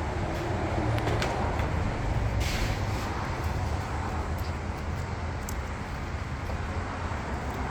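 Steady low mechanical rumble, with a few light clicks and a brief scrape about two and a half seconds in.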